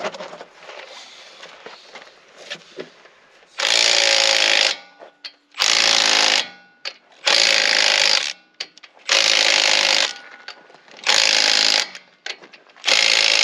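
Cordless impact wrench hammering lug nuts onto a truck's front wheel, in six bursts of about a second each, a second or so apart, starting a few seconds in.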